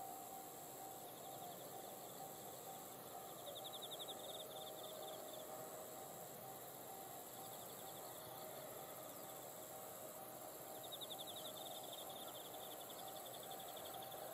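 Faint railway level-crossing alarm ringing steadily at an even beat, while insects trill in pulsed bursts three or four times over a steady high buzz.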